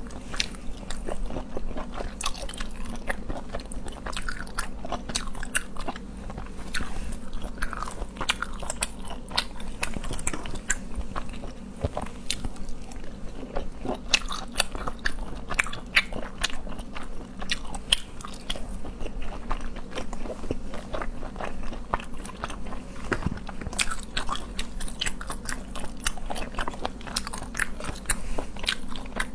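Close-miked eating of seafood: continuous chewing and biting with frequent irregular crunching and wet clicking, over a steady low hum.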